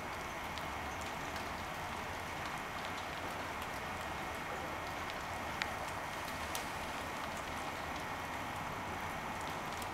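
Heavy wet snow falling, a steady hiss with scattered light ticks, one a little sharper about five and a half seconds in.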